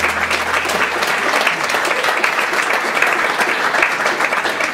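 Congregation applauding, dense and steady, as a low held note from the worship band dies away in the first second.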